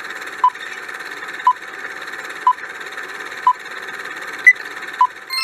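Quiz countdown timer sound effect: a short beep about once a second over a steady hiss. Near the end one beep is higher and louder, with a last normal one just after it.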